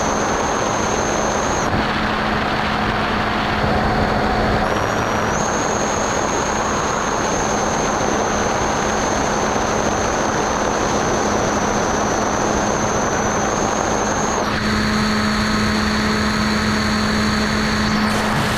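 Skyhunter FPV plane's electric motor and propeller running in flight, heard from the onboard camera over a steady rush of air noise. The high motor whine drops out about two seconds in, returns rising near five seconds, and shifts to a lower pitch near fifteen seconds.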